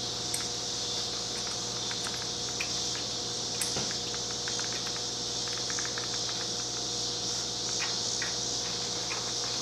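Faint, scattered light clicks and taps of hand work on the exhaust header flanges and nuts, over a steady high-pitched hiss and a low hum.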